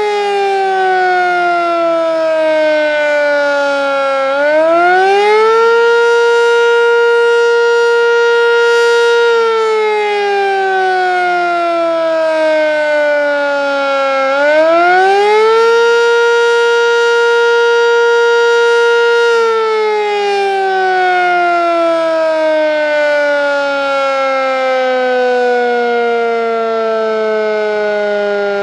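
Sentry 10V electromechanical outdoor warning siren sounding the attack signal during a test. Its pitch rises quickly, holds steady for a few seconds, then slides slowly down, and the cycle runs twice, with a long slow fall near the end.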